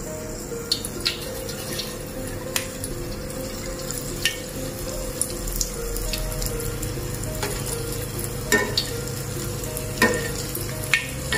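Cassava balls deep-frying in hot oil, a steady sizzle, with sharp clinks of a steel spoon against the stainless-steel pan, two of them louder late on. Faint background music runs underneath.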